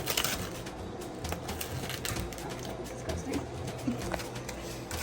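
Background music with a steady pulsing beat, with scattered light clicks over it.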